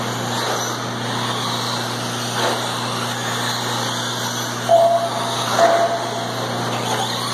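Radio-controlled race cars running laps on a dirt track, their motors whining up and down with the throttle. A steady low hum runs underneath, and two short flat beeps sound about five seconds in.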